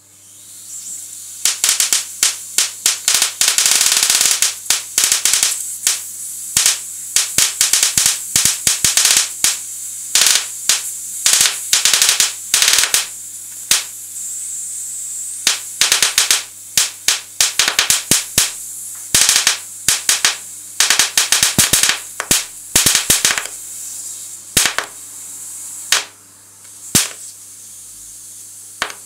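High-voltage sparks from a TV flyback transformer with a voltage tripler, about 20 kV, snapping across pencil graphite on paper in rapid irregular runs with short pauses. Under the snaps, a steady high hiss and a low hum.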